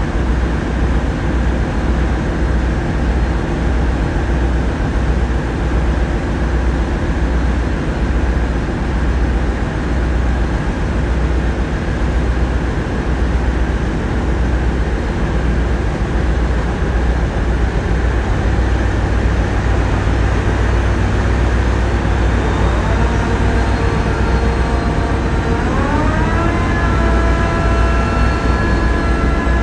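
Tugboat diesel engines running steadily with a low throb. Near the end they rise in pitch and hold at higher revs as more thrust is called for through the Voith Schneider propeller controls.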